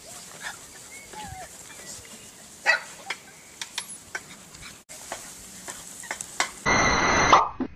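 A litter of young puppies yipping and whimpering in short, high, wavering calls over a steady hiss, with a sharper yelp a few seconds in. Near the end there is a loud, rough rush of noise lasting under a second.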